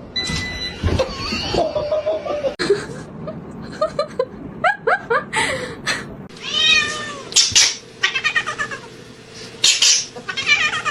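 Cats meowing: a string of short, rising meows, then a longer meow about six and a half seconds in, with more meows near the end.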